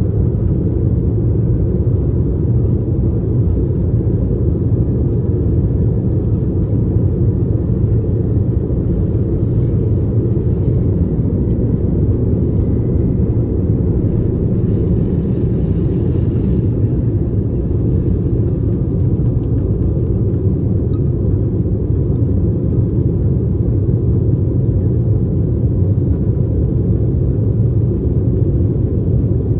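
Embraer E190 jetliner's twin GE CF34-10E turbofans at takeoff thrust, heard inside the cabin from a rear window seat: a loud, steady low rumble through the takeoff roll and climb-out, with a faint steady whine above it.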